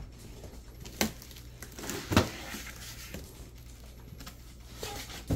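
Cardboard box and foam packing inserts being handled: a few knocks and scrapes, the loudest about two seconds in, over a faint steady low hum.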